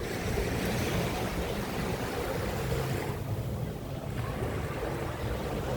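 Small waves washing onto a sandy beach, with wind rumbling on the microphone. The brighter wash of the surf fades about three seconds in.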